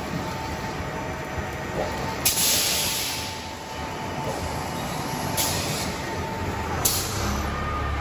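Silage packaging machine running with a steady mechanical rumble and a faint whine, broken by three bursts of air hiss, the first and longest a little over two seconds in.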